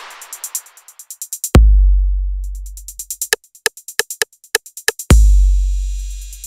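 Electronic dance drum loop at 135 bpm, drums only. A deep bass kick with a long fading boom lands about a second and a half in and again near the end, with quick even hi-hat ticks between them and a run of short, sharper hits in the middle.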